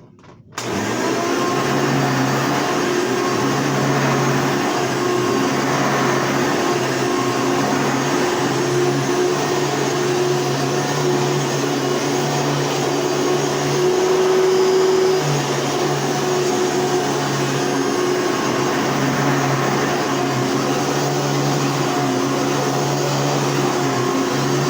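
Hoover Elite upright vacuum cleaner coming on about half a second in and running steadily with a motor hum and rushing air. A little past halfway it briefly gets louder and changes tone.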